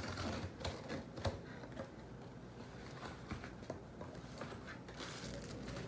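Cardboard shipping box being handled and opened by hand: light rustling and scraping with scattered small clicks and knocks, busiest in the first second or so.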